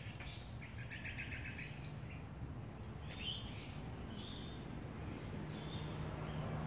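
Small wild birds calling: a quick trill of rapid high notes about a second in, then a falling chirp and a few short separate chirps.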